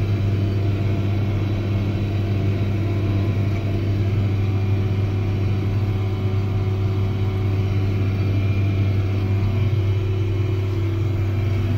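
Tractor engine running steadily under load while pulling a tandem disc through the soil, heard from inside the cab as an even, low drone.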